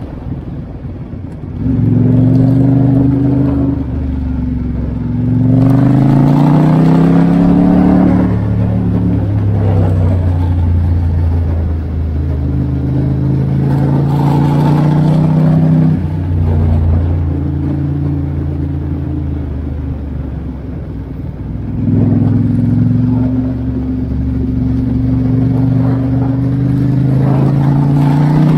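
Ducati XDiavel S's twin-cylinder engine running under way. It pulls harder about two seconds in, again near six seconds and again near twenty-two seconds, its pitch climbing as it accelerates and dropping back several times in between.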